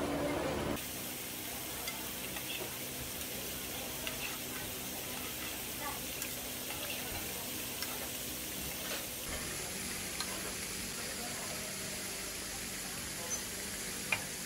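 Sauce bubbling and sizzling in a frying pan, with light clicks of metal tongs and a spoon against the pan as pieces are laid in and sauce is ladled over them.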